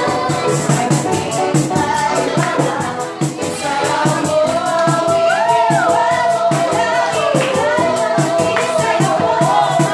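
Loud party dance music with a fast, steady beat and shaker-like percussion. From about four seconds in, a voice holds one long note that bends up and down.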